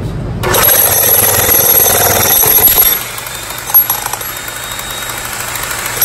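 Pneumatic jackhammer chiselling into a slab of ordinary concrete, running hard for about two and a half seconds and then stopping as the slab splits in two. A single sharp knock comes about a second later, over a steady low hum.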